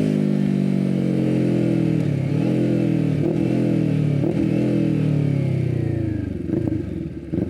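Kawasaki Ninja 400 parallel-twin with a full aftermarket exhaust and no catalytic converter, decelerating: the engine note falls steadily, broken by three short dips about a second apart. About six seconds in it drops lower and quieter, with a few sharp pops near the end.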